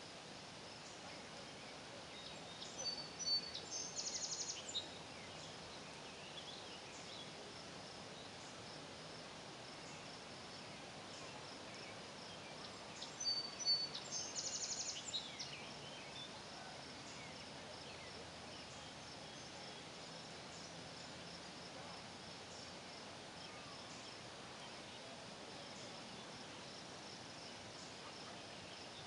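Faint steady high-pitched insect chorus, with a songbird singing twice, about 3 and 13 seconds in: each phrase a few clear notes followed by a fast trill.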